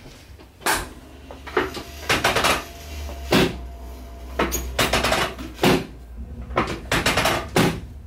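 About a dozen sharp knocks and thuds at irregular intervals, some in quick pairs, from a chiropractic treatment table as the right hip of a patient lying face down is adjusted with hand thrusts.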